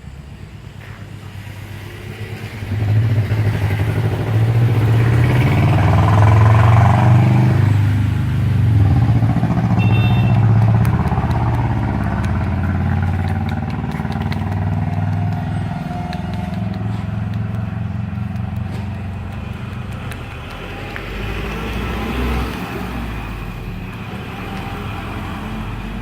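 An engine running close by, louder from about three seconds in and then slowly easing off, with a short high beep about ten seconds in.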